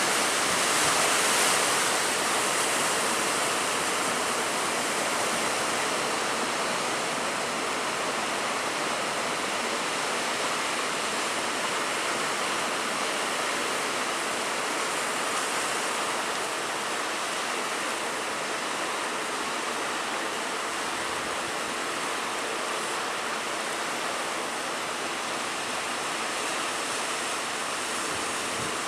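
Heavy sea surf in rough weather: a steady rushing of waves, swelling slightly now and then.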